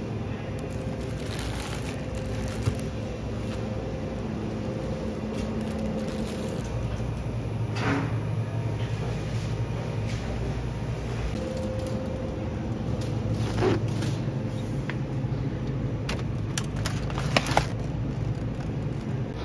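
Supermarket ambience: a steady machine hum, as from refrigerated display cases, over the low rumble of a shopping cart being pushed. A few short clicks and rattles come through, a sharp pair near the end.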